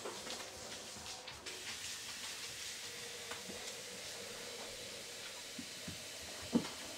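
Faint scattered clicks and scuffs of puppies' paws on a tiled floor over a steady background hiss, with one short louder knock near the end.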